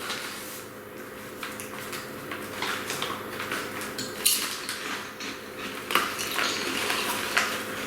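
Scattered crisp crackles and small clicks of puffed corn chips being crunched and handled while they are eaten.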